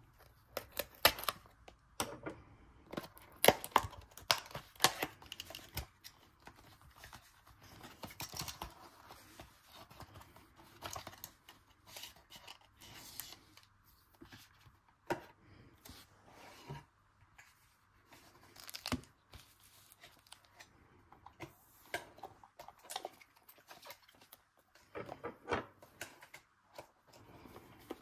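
Foil Pokémon card booster packs and a cardboard box being handled: irregular crinkling rustles and light taps, loudest in the first few seconds.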